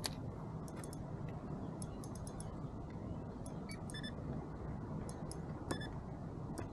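Light, sharp clicks and ticks, scattered and in a few quick clusters, over a steady low rumble.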